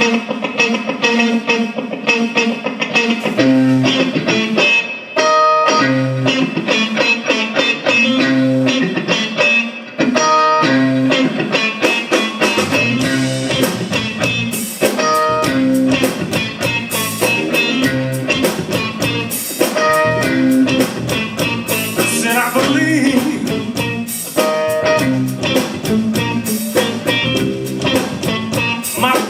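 Electric blues trio playing an instrumental opening, with electric guitar over bass guitar and drums. The cymbals grow louder about twelve seconds in.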